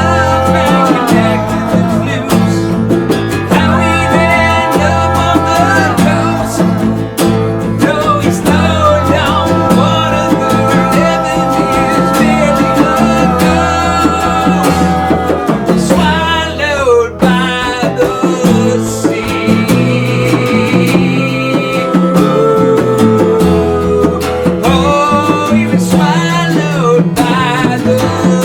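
Rock band playing a song live: guitar over a steady bass line and drums, with singing.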